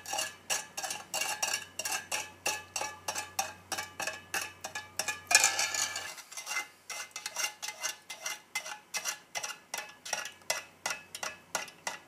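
A spoon stirring a powdered orange drink into water in a stainless steel cup, clinking against the cup's side about three times a second, with one louder scrape about five seconds in.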